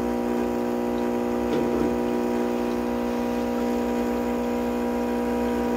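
Saeco Poemia espresso machine's vibratory pump humming steadily as it pushes the last of the descaling solution through the brew head.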